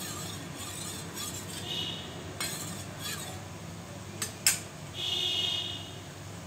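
Metal spoon stirring cornflour slurry in a metal bowl, clinking and scraping against the sides, with the loudest clink about four and a half seconds in as the spoon is set down.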